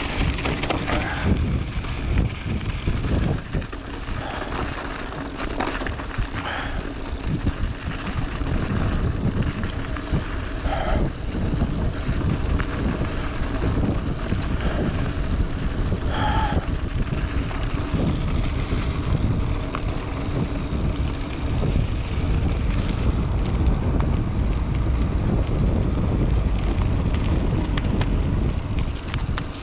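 Mountain bike rolling fast down a dirt and gravel trail: wind buffeting the microphone over the rumble of the tyres, with the bike rattling and clicking over the rough surface.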